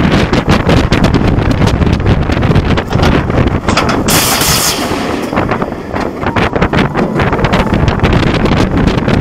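Heavy wind buffeting on the rider's head-worn camera microphone as a B&M wing coaster train runs at speed. A short, loud hiss comes about four seconds in.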